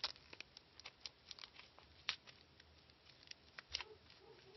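Scissors cutting tape off a bubble-wrapped package: a string of faint, irregular snips and crinkles.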